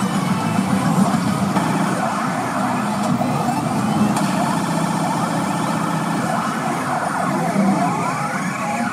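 P Abunai Keiji pachinko machine playing its reach-effect sounds: dense electronic effects with siren-like rising and falling tones that sweep most clearly near the end.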